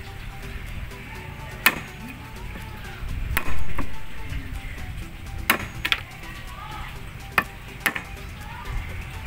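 A wood chisel being struck as it cuts a notch into the top of a wooden baluster: six sharp knocks a second or two apart, two of them close together about halfway through, over background music.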